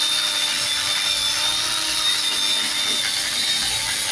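Electric angle grinder running steadily as its brush or abrasive disc scrubs carbon off an engine cylinder head, a constant high whine over a scraping hiss.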